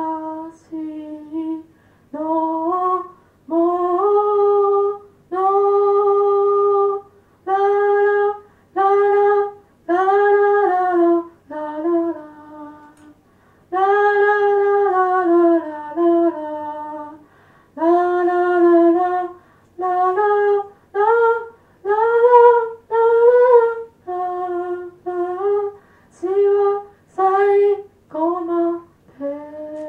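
A woman singing unaccompanied: a slow, simple melody of short held notes separated by brief pauses.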